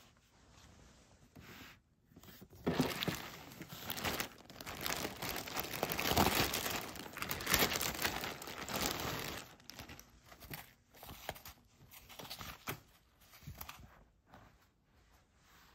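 Clear plastic wrapping crinkling and rustling as it is pulled open and a shearling hat is lifted out, a dense crackle for about seven seconds, then a few quieter rustles and light handling noises.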